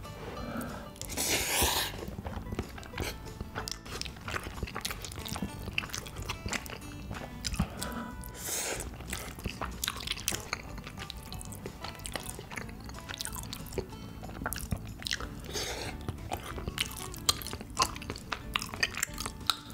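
Close-up mouth sounds of eating sauce-coated instant noodles: wet chewing and lip-smacking clicks, broken by a few loud hissing slurps, about a second and a half in, around eight and a half seconds, and near sixteen seconds. Soft background music runs underneath.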